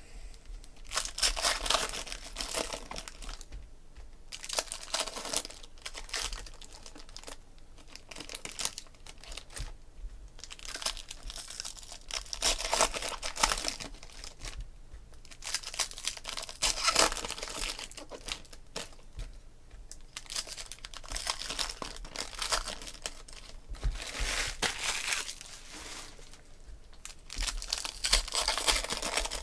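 Foil trading-card pack wrappers crinkling and tearing open in repeated bursts as packs are opened by hand.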